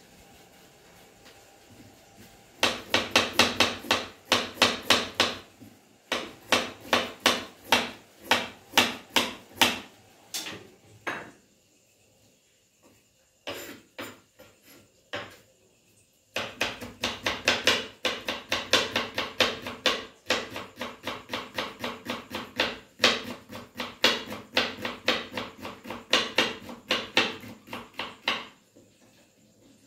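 Kitchen knife chopping carrot on a wooden cutting board: quick runs of even knife strokes against the board, about three to four a second. The strokes stop for a few seconds in the middle, with only a few single cuts, then start again.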